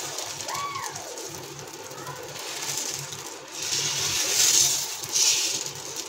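A ladle spreading dosa batter in circles over a hot nonstick tawa: soft scraping swishes, louder in two stretches about four to five seconds in.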